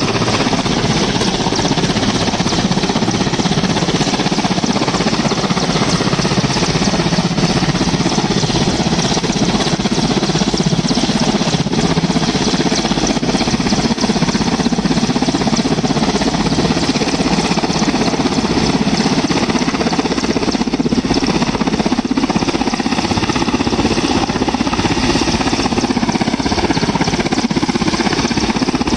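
Indian Air Force Mi-17 helicopter hovering low and coming down to land, its rotors and turbine engines running loud and steady.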